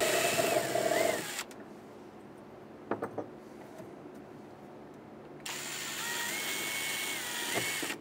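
Power drill running in two bursts: a short one at the start and a longer one of about two and a half seconds near the end, its motor whine shifting in pitch, with a few light clicks in the pause between.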